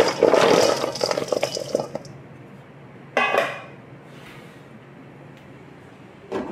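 Broken chunks of dark chocolate clattering as they are poured from one stainless steel bowl into another, for about the first two seconds. A single metal clank follows about three seconds in, and a shorter knock near the end as the steel bowl is set onto a pot.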